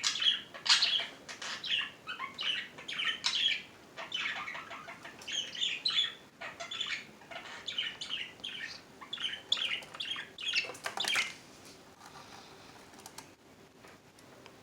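Pet budgerigars chirping and chattering in a quick, dense run of short calls, which drop away to near quiet about eleven seconds in.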